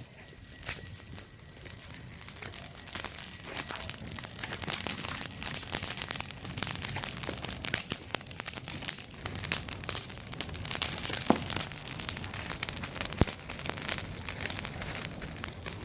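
Wood fire burning in a hearth, crackling continuously with a sharp pop now and then; the crackling grows denser a few seconds in.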